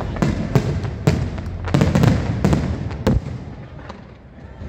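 Fireworks display: a rapid run of aerial shell bursts, sharp bangs with echoing tails roughly every half second, thinning out and quieter near the end.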